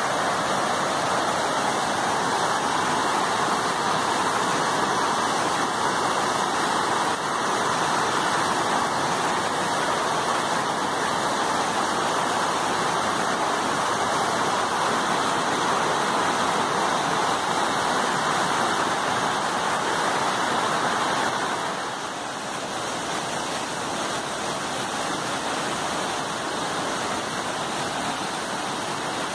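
Waterfall cascading over rock slabs: a steady rush of water, dropping a little in loudness about two-thirds of the way through.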